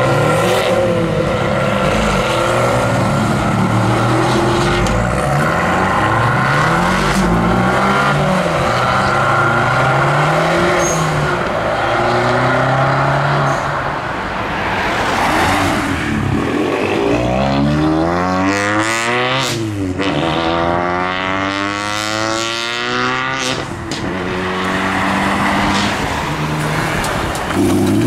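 Small turbocharged four-cylinder Abarth 500 hatchbacks accelerating hard away, one after another. The engine note climbs through each gear and drops back at every upshift.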